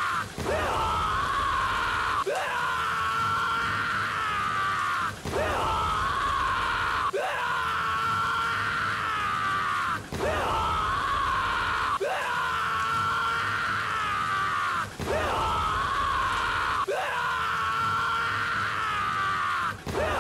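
A young man's drawn-out anime scream, looped over and over. Each pass restarts every two to three seconds with a short dip and a rising onset.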